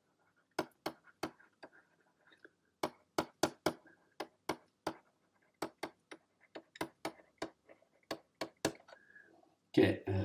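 Pen stylus tapping and clicking on a graphics tablet while words are handwritten: irregular sharp clicks, two or three a second, with faint scratching between. A man's voice starts just at the end.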